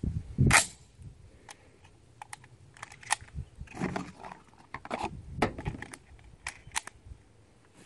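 Browning A-5 semi-auto shotgun being handled: one sharp knock about half a second in, then a scatter of short metallic clicks and clacks from the action and shells.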